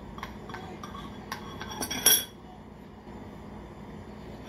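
A metal teaspoon clinking against a small glass bowl while paprika is shaken from a plastic-capped spice jar: a run of light clicks and taps, the loudest clink about two seconds in, then quiet.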